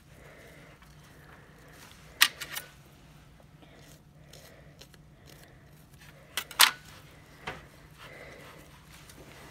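Sharp clicks of dissecting instruments being picked up and set down on a metal dissection tray: three close together about two seconds in, two more a little past six seconds and a softer one after, over a low steady hum.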